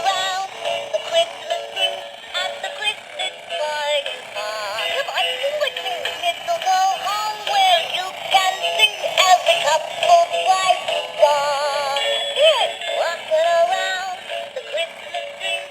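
Animated singing Christmas ornament playing its tinny electronic song through a small speaker, thin with no bass. Its motor mechanism makes a grinding sound with scattered clicks through the song.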